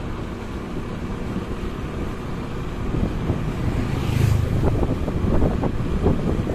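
Wind rushing over the microphone while travelling along a road, over a steady low vehicle rumble. A louder whoosh comes about four seconds in, followed by a few short knocks.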